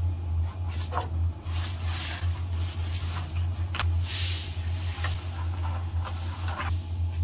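Weeds being pulled from between wooden deck boards: short rustles and scrapes that come and go, over a steady low hum of unknown source.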